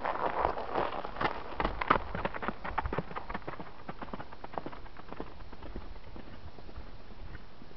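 Hoofbeats of a Holsteiner mare on the paddock's grass and dirt, an irregular run of dull thuds that is loudest in the first couple of seconds and fades away by about five seconds in as she moves off.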